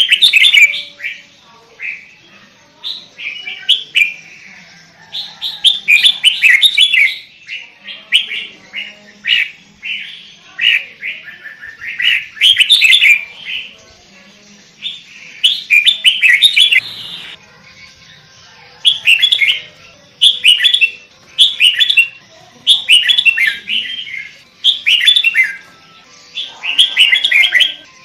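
Sooty-headed bulbul (kutilang) singing loudly, a long series of short, quick chattering phrases repeated every second or two.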